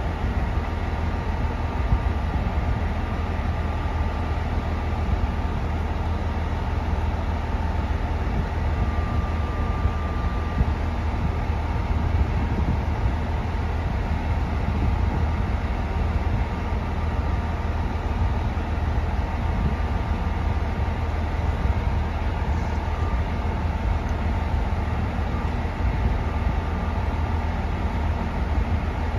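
KiHa E130-series diesel railcar idling while standing at the platform: a steady low engine rumble. A faint thin whine comes in for about a second near the middle.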